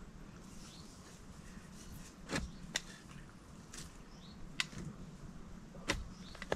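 A garden spade being handled and driven into soil to dig up potatoes: a few short, sharp knocks and scrapes spaced irregularly.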